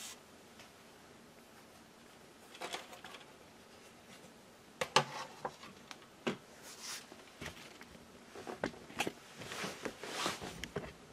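A laptop's base cover being lifted off and handled: scattered clicks and knocks of the cover and chassis, the loudest about five seconds in, with a cluster of lighter taps near the end.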